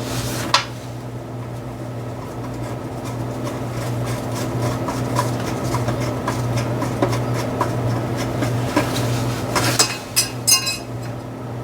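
Hand tools clicking and scraping on metal while a loose 10 mm bolt on a thin sheet-metal bracket is worked out, over a steady low hum. About ten seconds in comes a short burst of louder metallic clinks as a part drops.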